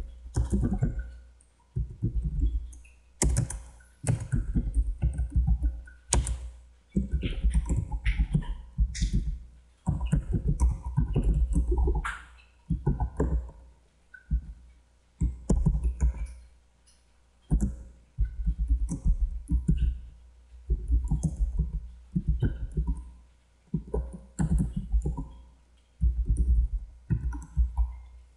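Computer keyboard typing in quick bursts of keystrokes separated by short pauses.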